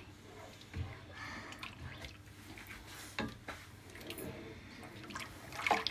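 Silicone spatula stirring thick semolina-and-milk kheer in a metal pan: faint wet squelching and scraping, with a few light clicks of the spatula.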